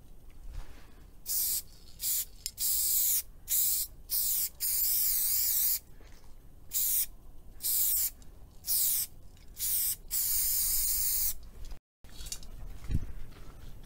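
Aerosol spray-paint can hissing in a rapid series of short sprays with a few longer ones, laying down a graffiti tag on a wall. The spraying stops abruptly near the end, and a single low thump follows.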